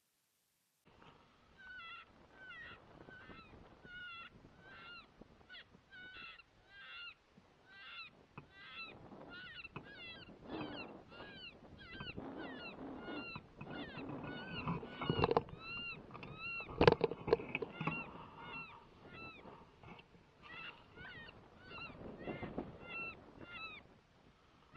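Geese honking repeatedly, a steady run of short arched honks about two a second, with a sharp knock about two-thirds of the way through.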